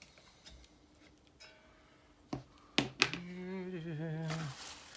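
A few sharp knocks of small tools being handled on the bench, the loudest two close together just before the middle. Then a man hums a short wavering tune for about a second and a half.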